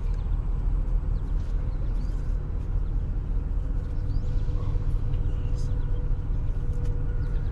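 A work truck's engine idling: a steady low rumble with a faint steady hum above it.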